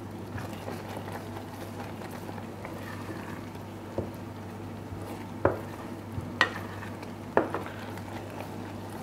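Almond and sugar syrup topping simmering in a pot while a spoon stirs it, with four sharp knocks of the spoon against the pot in the second half. The syrup is being reduced towards the point where a path drawn through it stays open.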